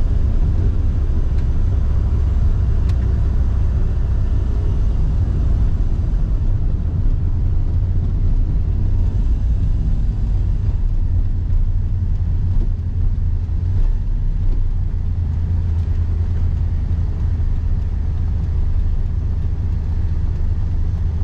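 Inside the cabin of a Mazda Autozam AZ-1 on the move: the mid-mounted three-cylinder engine's low rumble mixed with road noise, holding steady with no marked revving.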